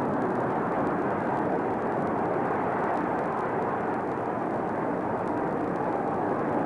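Steady, even rushing noise with no distinct events: the hiss and rumble of a film transfer that has no soundtrack.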